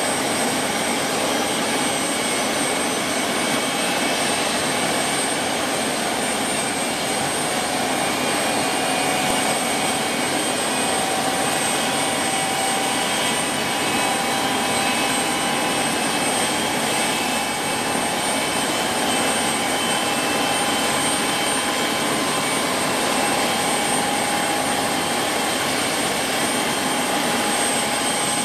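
Twin Allison 250 turboshaft engines of an Aerospatiale AS355F2 TwinStar helicopter running steadily on the ground with the rotors turning: an even rush of turbine and rotor noise with a steady high whine over it.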